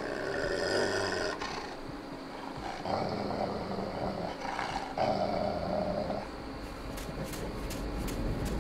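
An animal growling, in about three drawn-out growls.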